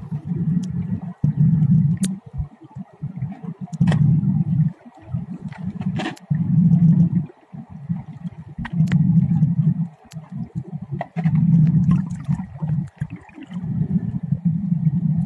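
Muffled underwater gurgling and rumbling, coming in pulses about a second long every two to three seconds, with scattered sharp clicks.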